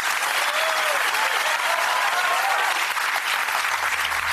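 Studio audience applauding steadily, with a few voices calling out over the clapping. Near the end a low, steady music drone comes in underneath.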